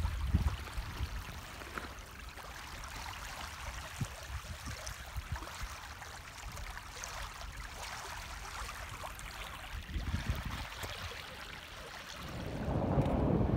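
Floodwater flowing with a steady rushing hiss. Wind starts buffeting the microphone near the end.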